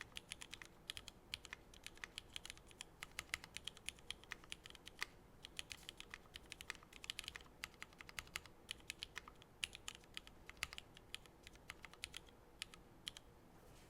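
Typing on a Keycult No.1/65 mechanical keyboard with pre-retooled Cherry MX Black linear switches in an aluminium plate, under GMK Metropolis keycaps: a quick, uneven run of keystroke clacks.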